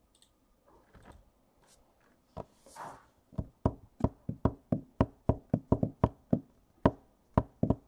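A rapid run of sharp knocks on a hard surface, about three or four a second, starting about two and a half seconds in after a brief rustle.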